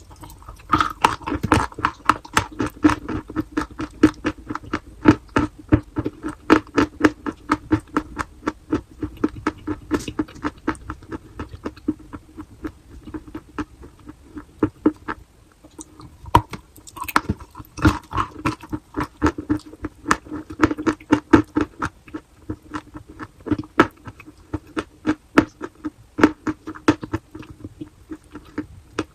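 Close-miked chewing of chalk: a steady run of sharp crunches, a few a second, with a brief pause about halfway through.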